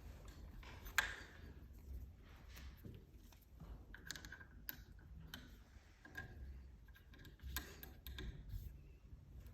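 Faint, scattered clicks and taps of small metal parts as a lever door handle is fitted onto its cover plate and its set screw secured, with one sharper click about a second in.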